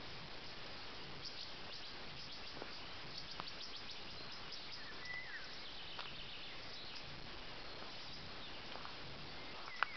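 Quiet outdoor ambience: a steady high hiss of insects, with a short falling bird chirp about five seconds in and a sharp click just before the end.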